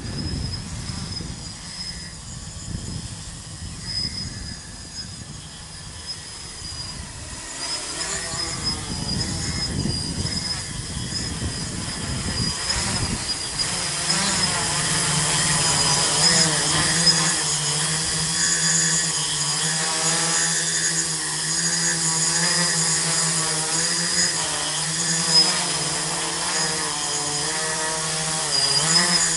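A tricopter's three brushless 2216 900 kV motors with 8x4.5 carbon-fibre propellers buzzing in flight, the pitch wavering up and down with throttle changes. The buzz grows louder from about a third of the way in as the craft comes in close.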